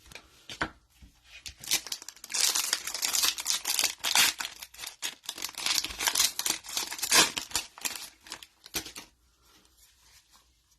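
A foil trading-card pack wrapper being torn open and crinkled. It starts with a few small clicks and handling noises, then about two seconds in comes a long stretch of loud ripping and crinkling that dies away about nine seconds in.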